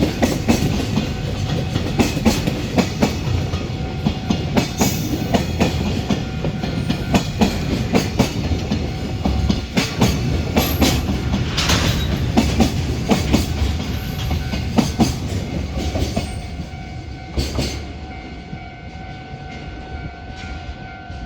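Container freight train rolling past, its wagon wheels clattering over the rail joints in a rapid clickety-clack over a heavy rumble. The clatter dies away about three-quarters of the way through as the train recedes, leaving a steady ringing tone.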